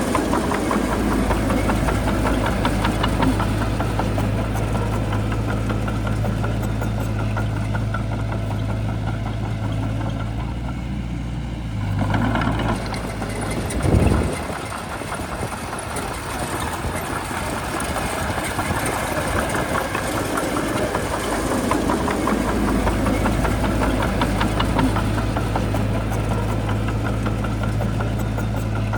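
Shantui bulldozer's diesel engine running with a steady low hum, along with continuous clattering. The low hum drops off a little before the middle, there is a short loud surge about halfway through, and the engine returns to its full steady hum for the last part.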